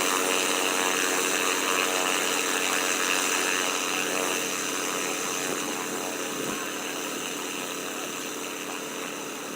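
Light STOL aircraft's engine and propeller running steadily, slowly getting quieter.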